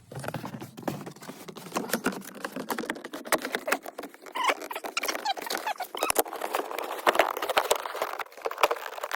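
Plastic lower center-console trim being worked into place by hand: rapid, irregular scraping, rubbing and clicking of plastic on plastic as its posts are lined up with their holes.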